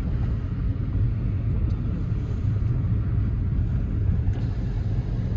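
Car driving, a steady low rumble of road and engine noise heard from inside the cabin.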